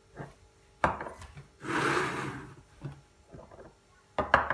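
Glass bowls and a plate being picked up and moved on a table: a sharp knock about a second in, a rubbing scrape around two seconds, and another sharp knock near the end.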